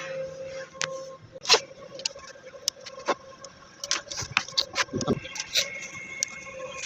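Irregular clicks and taps of a desktop PC power supply being handled and worked on, over a steady faint hum. A higher steady tone joins in about two-thirds of the way through.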